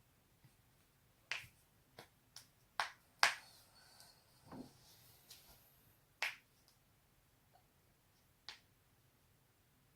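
Neck and back joints cracking: a run of sharp, separate pops at irregular intervals, the loudest about three seconds in, with one duller pop just after and a last one near the end.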